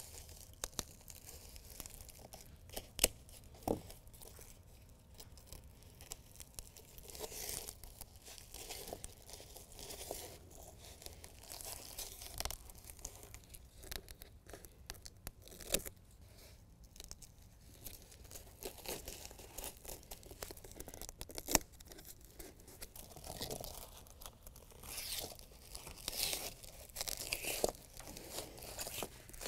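Strips of white-backed hook-and-loop (Velcro) tape being handled and laid along the carpet edges of a molded bed liner: quiet, scattered rustling and ripping, with a few sharp clicks.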